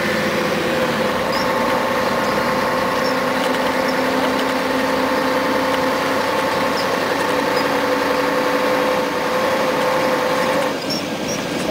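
Scania CN113CLL city bus's diesel engine and drivetrain running under way, heard from inside the passenger cabin as a steady whine made of several tones. The whine drops away suddenly near the end.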